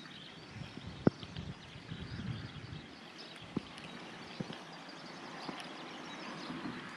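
Faint outdoor ambience with a low rumble and a few soft clicks.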